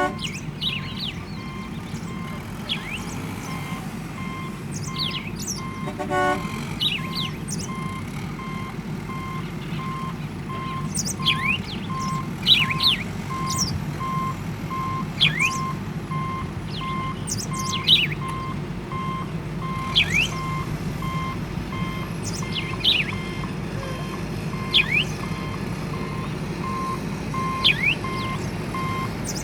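Construction vehicle's reversing alarm beeping steadily, about two beeps a second, over a low steady engine drone, with birds chirping throughout.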